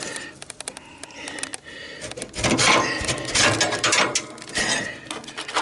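Metal clicking, knocking and scraping as a pry bar works at a riding mower's deck hanger pin, with two longer scrapes about two and a half and four and a half seconds in.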